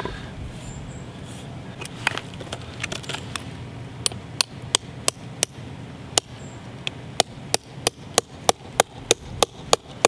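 Baby sledgehammer striking the steel spine of a Buck 110 folding knife, driving the blade into a chunk of cinder block: sharp metallic taps, a few scattered at first, then from about four seconds in a steady rhythm of about three strikes a second.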